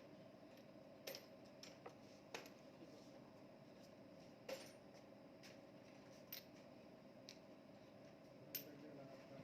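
Faint, sparse metallic clicks and taps, about nine in all, from tools and small engine parts being handled while assembling an engine, over a low steady hum.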